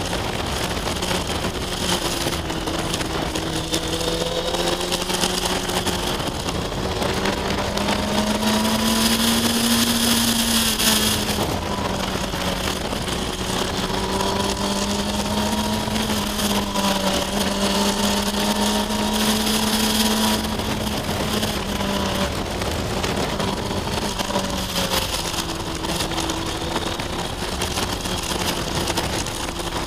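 Kawasaki ZX-6R 636 sportbike's inline-four engine running at riding speed, its pitch rising and falling with the throttle through the bends, under a constant rush of wind on the bike-mounted microphone. Around ten seconds in the engine note climbs and the wind gets louder.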